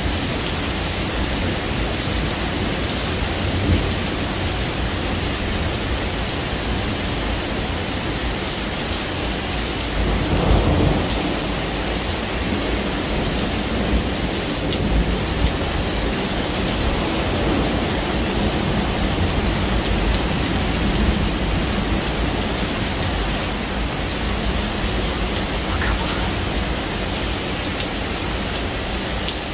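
Steady rain falling during a thunderstorm, with thunder rumbling low: one rumble swells about ten seconds in and a fainter one follows later.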